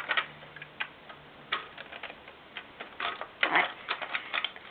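Plastic LEGO pieces clicking and rattling as they are handled and fitted together: a run of irregular light clicks, with a quick cluster of rattles about three and a half seconds in.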